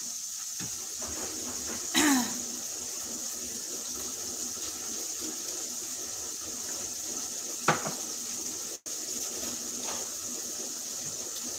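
Ground beef frying in a pan, a steady soft sizzling hiss, with a brief vocal sound about two seconds in and a light knock near eight seconds.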